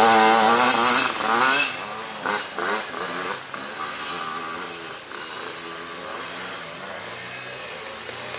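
Dirt bike engine revving loudly up and down for about the first second and a half, then dropping away to a fainter, wavering buzz of bikes running further off along the woods trail.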